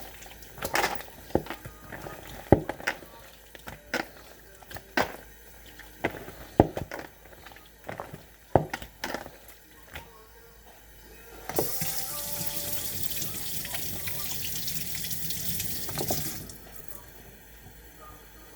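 Chicken being mixed by hand in a bowl of yogurt marinade, a run of irregular sharp wet slaps and knocks. Then a kitchen tap runs for about four seconds and is shut off.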